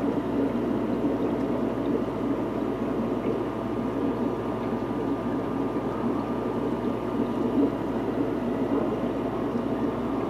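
Air-driven aquarium sponge filter bubbling steadily, a low, even rush of rising bubbles with a faint steady hum underneath.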